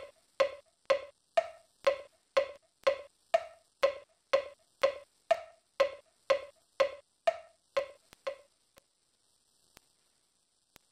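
A percussion beat of pitched, wood-block-like knocks, about two a second, over a steady hiss; it ends with two quick knocks about eight seconds in, after which only faint clicks remain.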